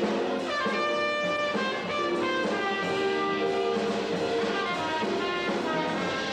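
Trumpet playing a jazz melody of short held notes over live band accompaniment.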